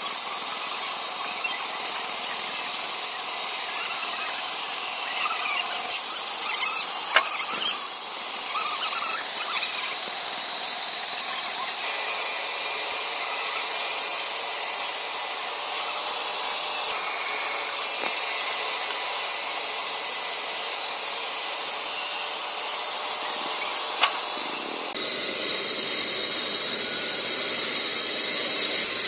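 Large vertical band saw running and cutting through logs, a steady high whine and hiss from the blade. Two sharp knocks stand out, and the sound shifts abruptly twice.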